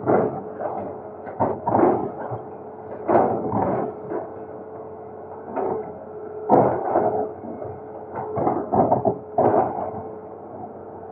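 Excavator breaking up a bridge's structure: irregular knocks and scraping crunches of the bucket against concrete and rubble, about ten in all, with the machine's engine humming steadily underneath.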